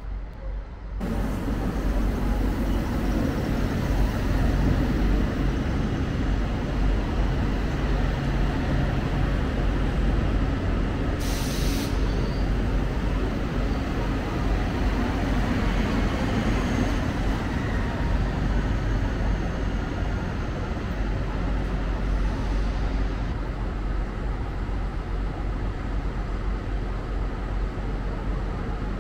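A TER regional train running through the station beside the platform, a steady loud rumble of motors and wheels. A short, sharp hiss of air comes about eleven seconds in.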